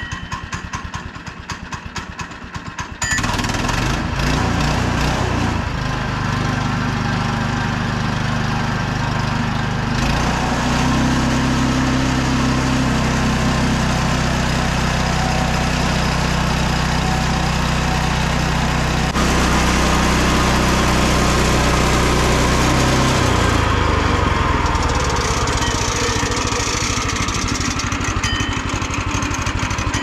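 Woodland Mills HM122 portable bandsaw mill's small gas engine idling, then throttled up about three seconds in to spin the band blade. From about ten seconds to about twenty-three seconds the engine sound grows heavier as the blade cuts a slab off the top of the log. After that it runs lighter again as the cut finishes.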